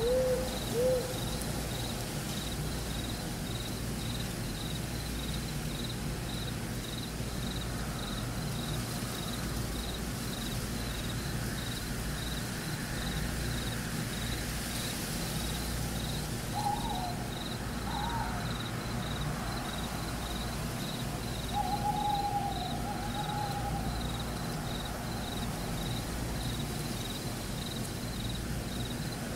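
Neurofeedback audio from the FocusBand EEG headband app: a nature-like soundscape with a steady low hum and a faint high pulse about twice a second, a couple of owl-like hoots in the first second, and a few short bird-like calls about halfway through.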